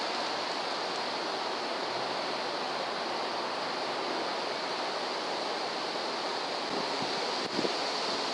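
Steady, even hiss of background noise with no distinct events, a little brighter in the upper range.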